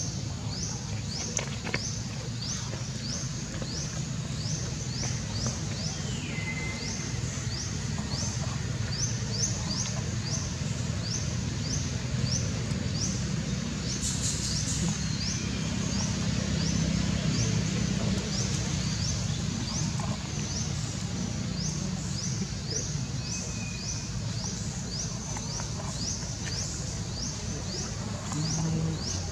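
Outdoor ambience: a steady low rumble under a high, evenly repeating chirp, with a brief falling squeak about six seconds in.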